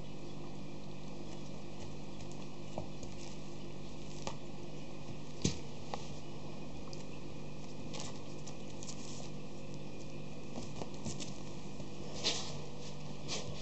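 Schipperke puppies play-fighting: paws scrabbling and patting on a sheet over a wooden floor, with scattered small knocks and scrapes, the sharpest about five and a half seconds in. A steady low hum lies underneath.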